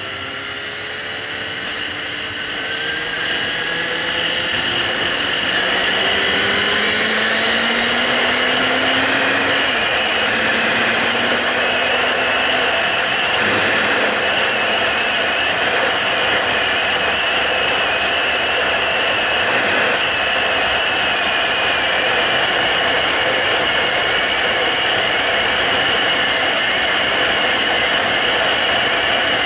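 Suzuki GSR750's inline-four engine rising in pitch as the motorcycle accelerates over the first several seconds. Then a steady, loud rush of wind on the microphone at speed, with the engine running beneath it.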